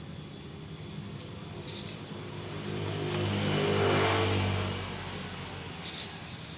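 A motor vehicle passing by, its engine sound swelling to a peak about four seconds in and then fading away.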